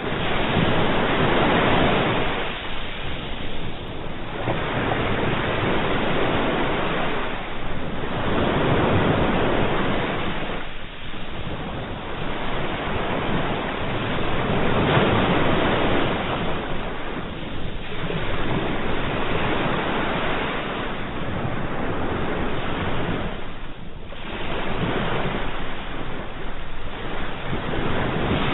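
Sea waves breaking and washing on the shore in a continuous surf, swelling and easing every few seconds.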